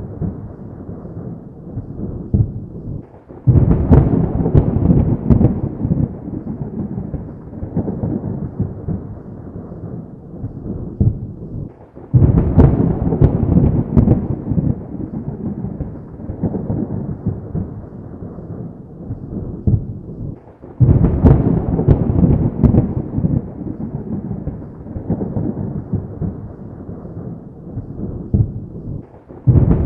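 Thunder: three loud claps about nine seconds apart. Each breaks in suddenly with a sharp crack, then rumbles and slowly fades before the next.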